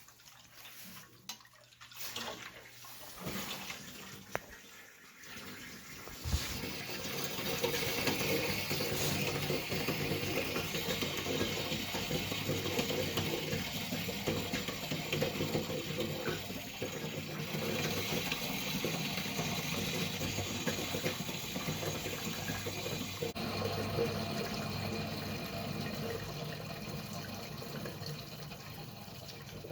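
Hot water rushing out of an electric water heater, starting suddenly about six seconds in after a few quiet knocks and then running steadily.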